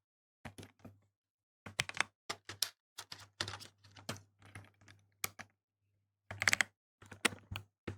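Transparent keycaps on an Ajazz AK820 Max mechanical keyboard with Box Ice Cream switches clacking as keys are pressed down, in irregular quick clusters of clicks separated by short pauses.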